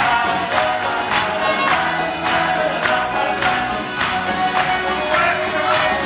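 Live folk band playing an upbeat song on accordion, banjo, acoustic guitar and drum kit, with a steady beat of about two strikes a second. Several voices sing together over it.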